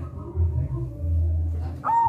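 Zebra dove (perkutut) cooing: low rolling notes, then near the end a quick run of short repeated notes begins, about four or five a second.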